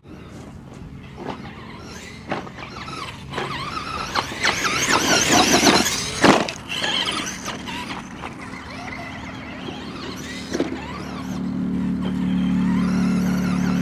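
Radio-control off-road race cars passing close on a dirt track: the high, wavering whine of their motors swells to its loudest about five to six seconds in, with scattered sharp clicks, then fades. A steady low hum comes in near the end.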